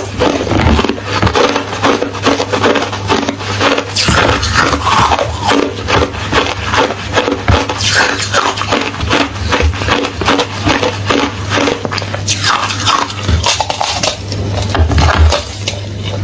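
Crunchy hollow ice being chewed, a dense unbroken run of sharp cracks and crunches.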